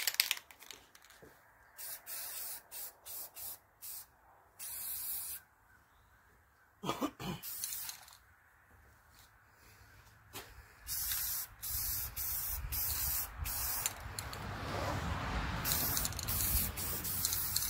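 Aerosol spray paint can sprayed in many short hissing bursts with pauses between them, giving the engine's clamshell motor mount plates another coat. A low rumble sits under the sprays in the last few seconds.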